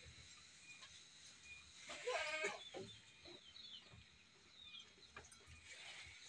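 A goat bleats once, a short wavering call about two seconds in.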